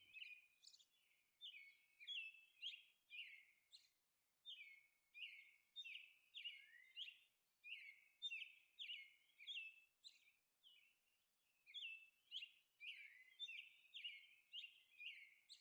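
Faint bird chirping: a steady run of short, high chirps, each sliding downward, about two or three a second.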